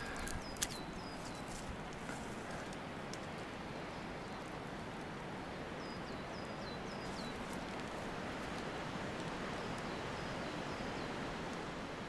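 Wind rushing steadily through conifer forest as a storm comes in, slowly building. A small bird calls in short falling chirps, a few at a time around the middle and near the end, and there is one sharp click just after the start.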